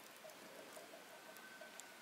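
Near silence: faint outdoor ambience, with a faint run of quick, even chirps and a few tiny scattered ticks.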